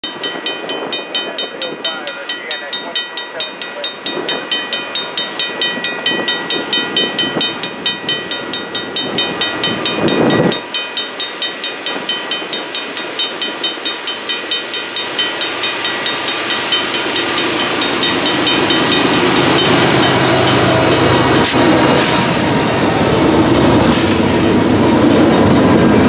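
Level-crossing warning bell ringing in a fast, even rhythm, a few strokes a second. It is gradually drowned as an approaching CN freight train's GE diesel locomotives and wheels grow louder through the second half, until their rumble fills the sound as they pass close by.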